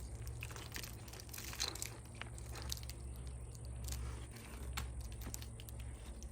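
Scattered crunching and scraping of tree bark as climbing spurs dig in and the flip line drags around the trunk, a short irregular click or crunch every fraction of a second over a low steady rumble.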